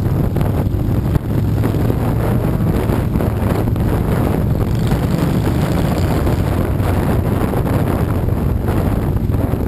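Motorcycle engine running at a steady cruise, heard under heavy wind buffeting on a bike-mounted microphone.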